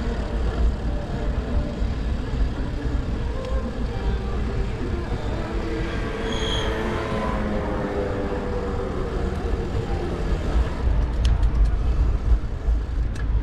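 Wind buffeting the microphone of a bicycle-mounted action camera while riding, with road traffic passing. About six seconds in, a vehicle passes close, with a brief high tone.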